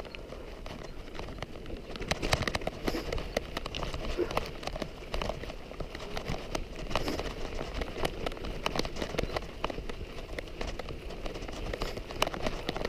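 Loose stones and gravel crunching and clicking on a rocky trail as people move over it, a dense irregular patter of small knocks.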